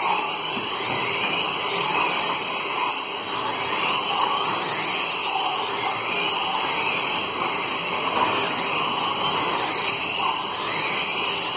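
Several 1/24-scale Formula Truck slot cars racing around a multi-lane track, their small electric motors whining and rising and falling in pitch as they accelerate down the straights and brake into the corners.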